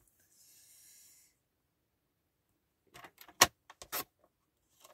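Paper trimmer and kraft paper being handled on a table: a brief soft rustle of paper, then a quick run of sharp clicks and taps, the loudest about three and a half seconds in.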